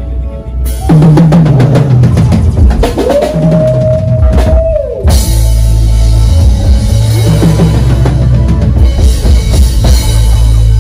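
Live band playing loud, with a drum kit and percussion hitting fast fills over electric bass guitar and keyboards; the band kicks in under a second in, and a held note slides up around three seconds in and falls away near five.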